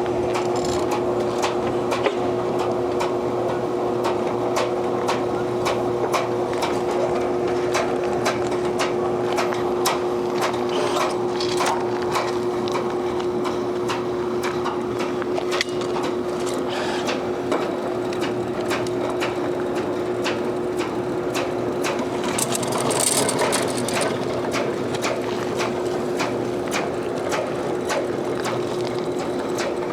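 Seamless gutter machine running steadily, its motor humming while the rollers form a length of 6-inch seamless gutter, with dense rapid ticking throughout.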